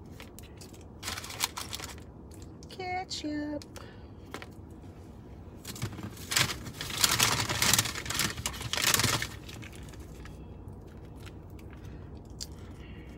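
Fast-food sandwich wrapper and paper bag crinkling and rustling as they are handled, in short bursts and then a longer, louder stretch from about six to nine seconds in.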